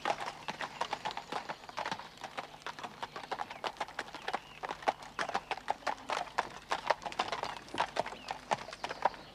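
Hooves of a pair of cart horses clip-clopping as they draw a wooden-wheeled cart past, a quick uneven run of hoof strikes.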